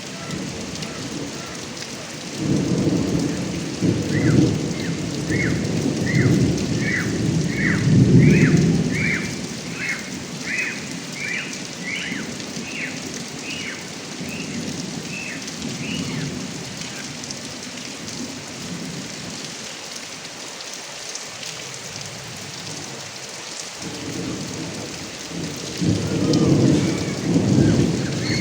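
Steady rain falling and running off a roof gutter spout, with thunder rumbling from a few seconds in until about ten seconds, and again near the end. A short high chirp repeats about every half second through the first half.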